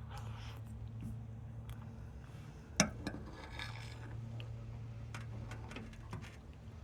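Eating sounds: scattered light clicks and scrapes of a utensil against a bowl of macaroni and cheese, with one sharper click nearly three seconds in, over a steady low hum.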